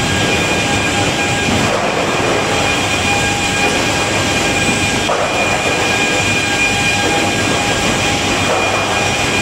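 Timber planing and stacking line machinery running steadily: a continuous loud industrial noise with several steady high whining tones on top.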